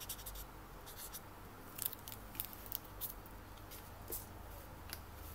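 Felt-tip marker scratching faintly on a plastic NFC card, with a scattering of short, light ticks as the card is handled.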